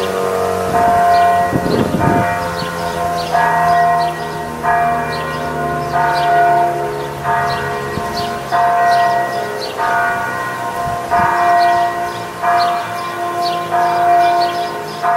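A bell tolling, with a strike roughly every 1.3 seconds and each stroke ringing on into the next. A siren winds down underneath in the first couple of seconds.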